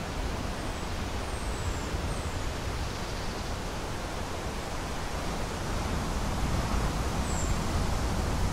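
Steady rushing wind noise with a low rumble of wind on the microphone, growing a little stronger near the end. A few faint, high, falling chirps come through early on and once more late.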